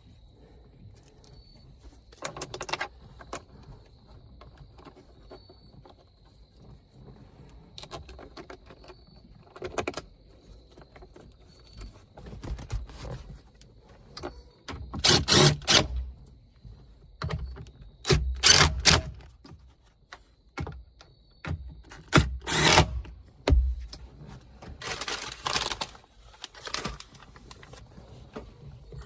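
Hands at work on interior trim: quiet clatter of plastic panels, screws and tools being handled. Four loud, short bursts of noise, each about a second long, come in the second half.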